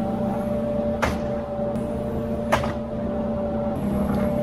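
Ponsse Buffalo Alpine forwarder's diesel engine and crane hydraulics running steadily as the crane slews, with a steady hum and a higher tone. Two sharp knocks come about a second and a half apart, the second the louder.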